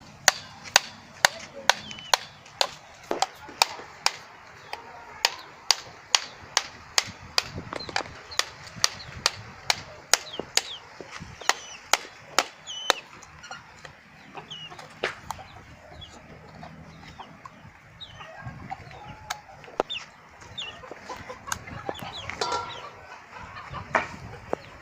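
Chickens clucking, with small high chirping calls among them, over sharp knocks about twice a second that thin out to occasional knocks about halfway through.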